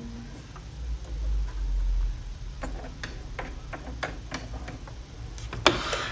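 Small irregular clicks and taps of hands handling the plastic needle area of a Singer M1605 sewing machine while threading it, starting about two and a half seconds in, with the sharpest click near the end. A low handling rumble is heard in the first couple of seconds.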